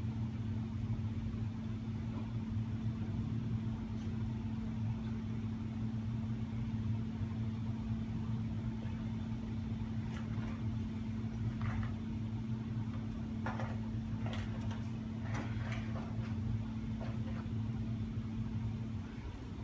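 A steady low machine hum, dipping briefly near the end, with a few faint clicks in the second half.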